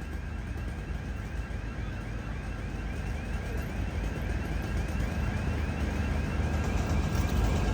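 A heavy vehicle's engine running at street level, growing louder toward the end, with a rapid run of evenly repeated short chirps over it in the first half.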